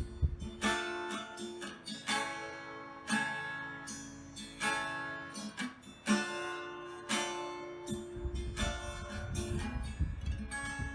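Acoustic guitar playing the instrumental close of a song, chords struck about once a second and left to ring, with a last chord near the end.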